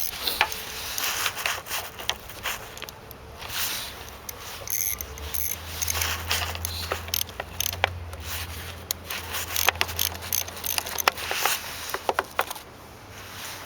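10 mm ratchet wrench clicking in irregular spells, with metal clinks and scrapes, as the nut on the negative battery terminal clamp is loosened.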